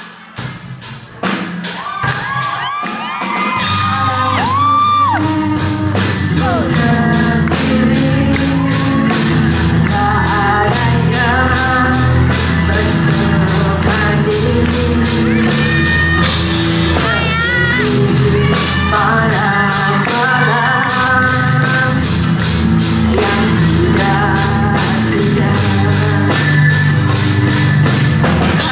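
Band music with singing over a steady drum beat, starting after a few seconds of shouts and whoops.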